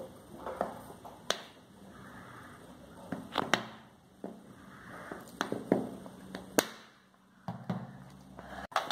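Plastic bottle of homemade toothpaste foam being shaken and poured into a plastic bowl: scattered sharp knocks and clicks of the bottle being handled.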